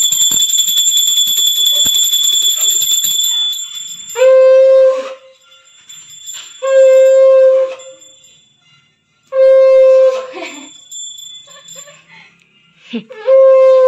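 A metal hand bell rings rapidly for the first three seconds or so. Then a conch shell is blown in short blasts of about a second each, four times, the last running on past the end.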